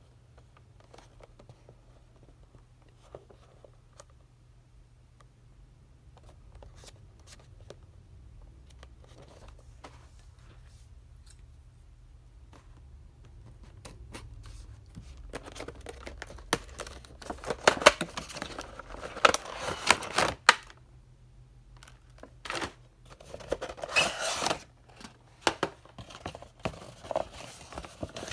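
Scissors cutting along the top flap of a cardboard toy box, in loud crackly spells over the second half, after quieter rustling and tapping as the box is turned in the hands.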